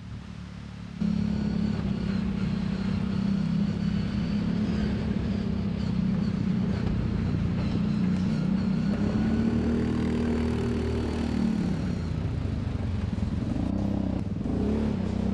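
Side-by-side UTV engine running at fairly steady revs, with a thin high whine over it. It jumps louder about a second in, and the pitch drops and wavers near the end.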